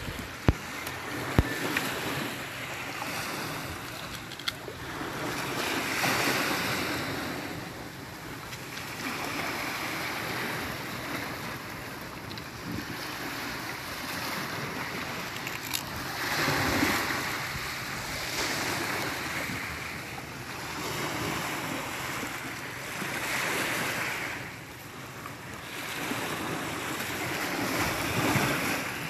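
Small waves breaking and washing up onto a pebble shore, surging every few seconds, with wind. Two sharp clicks come in the first couple of seconds.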